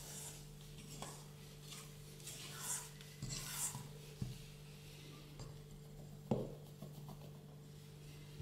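Spatula scraping and folding cake batter in a stainless steel bowl: soft swishing strokes, with a few light knocks, the sharpest about six seconds in.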